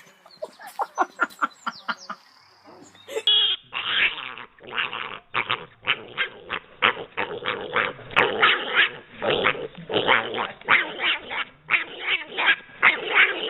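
A dog barking in quick repeated bursts. Short, higher yips come first; about three seconds in, after a cut, a long run of rapid barks follows.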